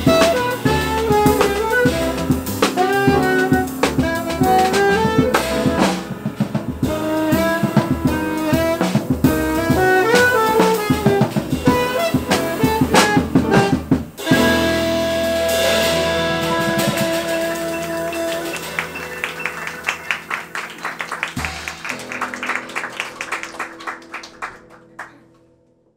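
Live jazz quartet of saxophone, piano, double bass and drum kit playing quick saxophone lines over the band. About halfway through, the band lands on a held final chord with a rapid cymbal roll, and the sound fades away near the end.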